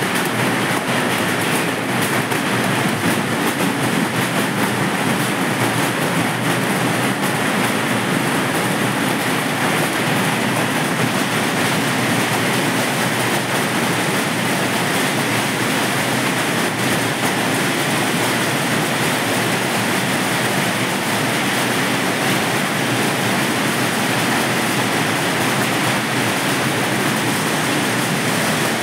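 Heavy hailstorm: a loud, steady, dense rattle of hailstones pelting the ground and foliage, mixed with strong wind through the trees.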